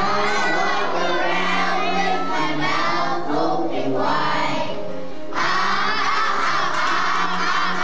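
A group of kindergarten children singing a song together in unison. The voices thin out briefly, then come back fuller about five seconds in.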